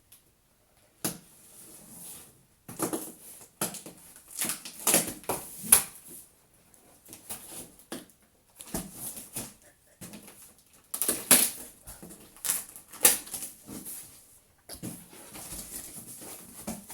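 A cardboard box and its packing being opened and handled by hand: irregular rustling, scraping and crinkling in short bursts, with brief pauses between them.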